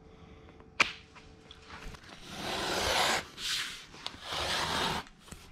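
A sharp click a little under a second in, then a knife scoring the paper face of a drywall sheet: a long scratchy stroke, a short one, and another long one.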